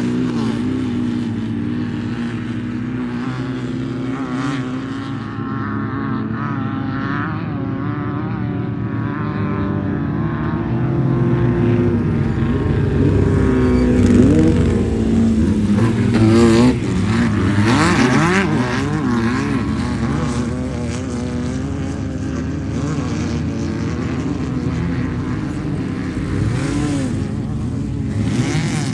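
Class 11 desert race cars' air-cooled VW Beetle engines running and revving as they pass, the engine pitch rising and falling. Loudest with hard revving about fourteen to seventeen seconds in.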